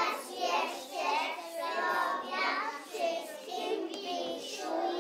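A group of young preschool children singing together, unaccompanied or with only faint music.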